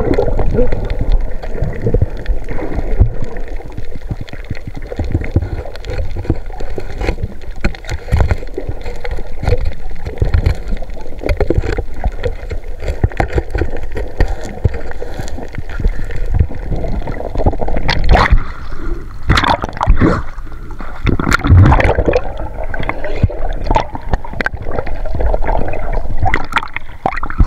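Sea water gurgling and sloshing close to the microphone, with a cluster of louder splashes about two-thirds of the way through.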